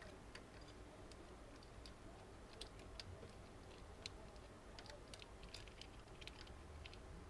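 Faint, scattered small clicks and taps of hands handling cables and plastic parts inside a desktop computer case.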